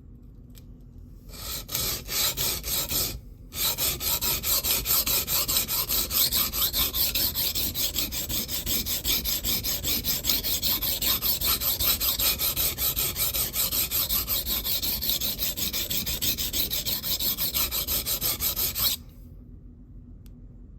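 Knife blade scraped in rapid back-and-forth strokes across a DMT extra-coarse (about 220 grit) diamond plate, grinding a new edge on a blade whose damaged edge has been ground away, until a burr forms. The strokes start about a second in, break briefly around three seconds in, then run steadily and stop abruptly near the end.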